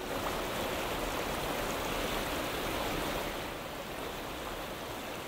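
Steady rush of flowing stream water, easing slightly in the second half.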